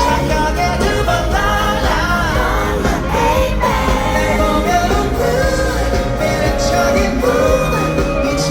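Live pop-rock band playing with sung vocals, loud and steady.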